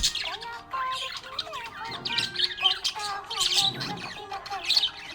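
Budgerigars chirping and warbling in a steady, busy stream of quick, overlapping high chirps and trills.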